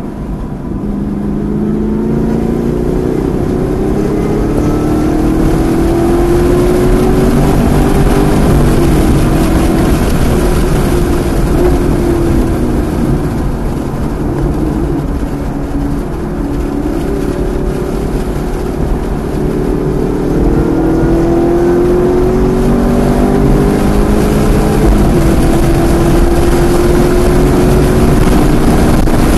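Performance car's V8 engine heard from inside the cabin under hard acceleration on a race track: the revs climb, drop back at each upshift and climb again, ease off briefly about midway through a bend, then pull hard again down the straight.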